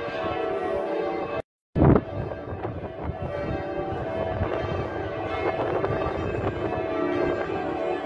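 The four heaviest bells of a church ring (the back four) ringing rounds, struck one after another in steady order down the scale. About a second and a half in, the sound cuts out briefly and comes back with a loud knock.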